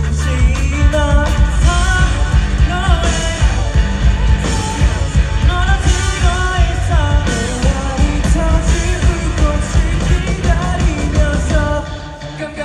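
Live rock band playing, with a lead vocal singing over drums and bass. The band thins out briefly near the end, then comes back in.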